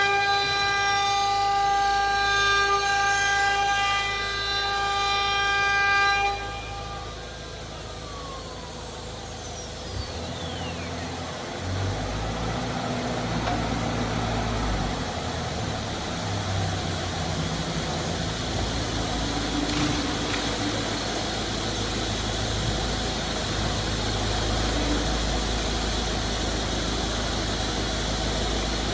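CNC router spindle running with a steady high whine, then switched off about six seconds in, its pitch falling as it spins down. A lower machine hum with shifting low tones follows.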